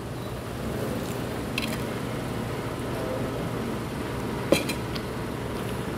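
Steady dining-room background hum with a faint murmur of distant voices. A light tableware clink comes about one and a half seconds in, and a sharper, louder one about four and a half seconds in.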